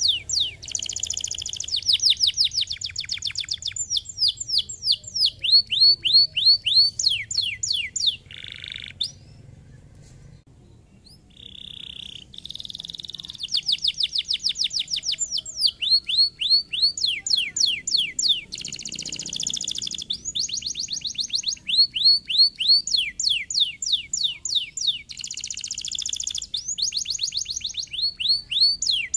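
Domestic canary singing: fast trills of repeated downward-sweeping notes alternating with buzzy rolls, with a short break about ten seconds in.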